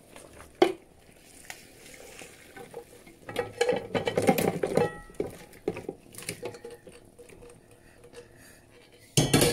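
A metal spoon scraping and knocking in a cooking pot as meat is stirred and turned, with scattered clicks and a busier stretch of clatter a few seconds in. A short loud burst of noise comes near the end.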